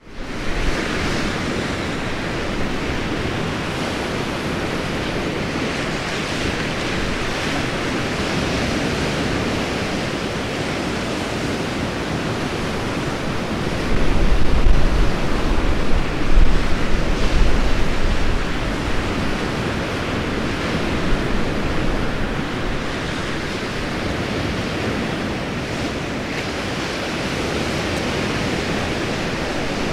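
Sea surf washing steadily in a continuous hiss. Wind buffets the microphone in a louder, uneven rumble from about 14 to 18 seconds in.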